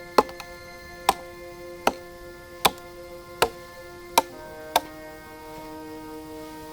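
Background music with held notes, and over it a series of sharp knocks at a steady pace, about one every 0.8 seconds. The knocks stop a little under five seconds in.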